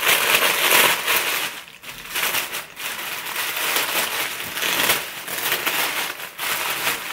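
Packaging crinkling and rustling as a garland is unwrapped by hand, in irregular handfuls with a few short pauses.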